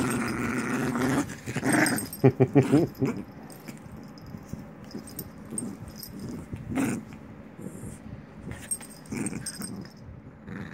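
Small dog play-growling as it mouths and tugs at a hand: a run of growls in the first three seconds, then quieter, with a few short growls later on.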